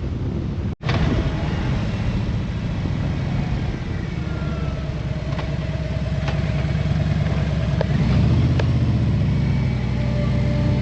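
Motorcycle engine running while riding, with a brief gap about a second in where the audio cuts. The engine gets louder about eight seconds in, as if pulling harder.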